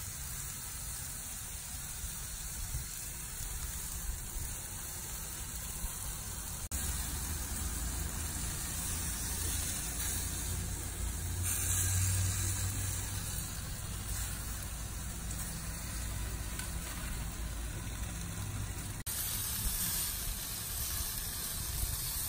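Marinated ribeye steaks sizzling on a grill grate, a steady hiss over a low rumble. The sound changes abruptly about seven seconds in and again near the end.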